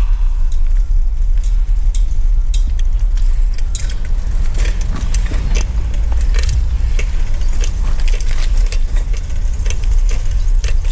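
Scrap metal clanking and rattling as it is handled, many sharp metallic knocks from a few seconds in, over a vehicle engine idling steadily.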